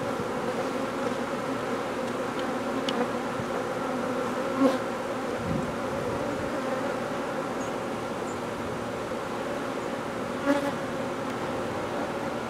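Honeybee swarm buzzing: a steady hum of many bees flying around their cluster, with two brief louder swells about four and a half and ten and a half seconds in.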